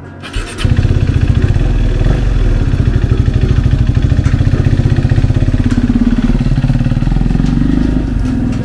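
Husqvarna 401 motorcycle's single-cylinder engine starting up about half a second in, then running with a fast, even pulsing beat. The engine note changes about six seconds in as the bike pulls away.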